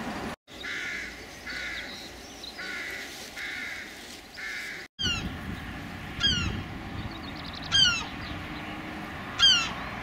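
Wild birds calling: first a run of five evenly spaced harsh calls, then, after a brief break in the sound about halfway, four louder, sharper calls that each drop in pitch, about a second and a half apart.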